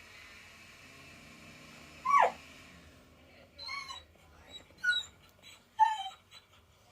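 A dog whining: one loud falling whine about two seconds in, then a few short high whimpers and yips.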